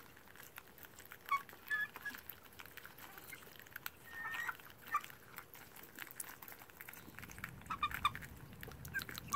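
Young chickens pecking grapes from a hand: faint, scattered clicks of beaks, with a few short, quiet peeps.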